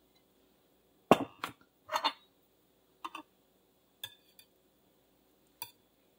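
A metal fork and knife clinking and knocking against a ceramic plate in a handful of separate clinks. The loudest comes about a second in, with a few softer ones after it.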